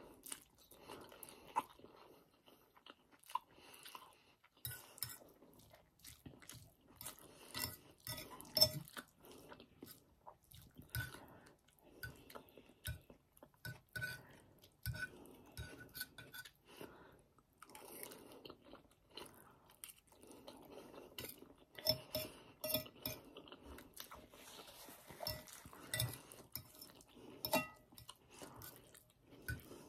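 Close-up chewing of palabok rice noodles, with a metal fork clinking and scraping on a plate now and then.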